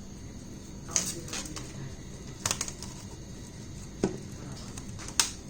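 Four short, sharp taps, spaced roughly a second to a second and a half apart, over a steady low background hum.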